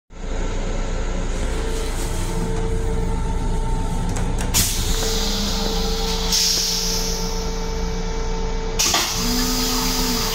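Steady hum and rumble inside a Long Island Rail Road M7 electric railcar's restroom. A hiss of air comes in about halfway, gets brighter a second or so later and returns near the end, after a few light clicks.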